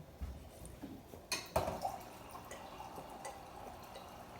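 Two sharp clicks about a second and a half in, then water pouring steadily, as when a cup is refilled.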